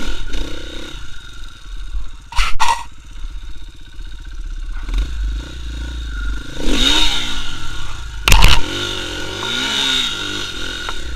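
KTM EXC 450 single-cylinder four-stroke enduro engine running under the rider's throttle on a rough trail. Its revs rise and fall in two surges in the second half. Two sharp knocks come about two and a half seconds in and a heavier one about eight seconds in; these are the loudest sounds.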